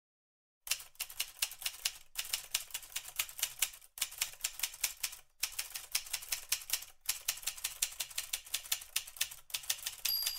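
Typewriter keys clacking fast in runs of one to two seconds with short breaks, starting under a second in. Near the end comes a short carriage-return bell ding.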